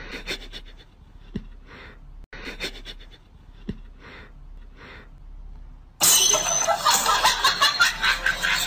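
A person laughing loudly, starting suddenly about six seconds in; before that only faint, quiet sounds.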